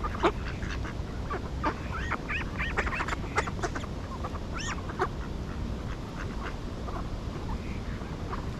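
Ducks quacking, a quick run of many short calls in the first few seconds, then only a few scattered calls over a steady background hiss.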